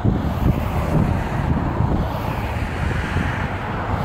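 Wind rumbling on the microphone over road traffic passing on a multi-lane road, with a vehicle going by that swells a little past the middle.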